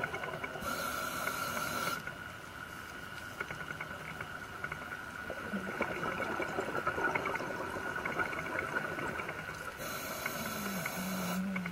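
Underwater sound on a scuba dive: the diver's regulator hisses twice as a breath is drawn in, once near the start and again about ten seconds in, each for about a second and a half. Between breaths there is a steady whine with faint scattered crackling clicks.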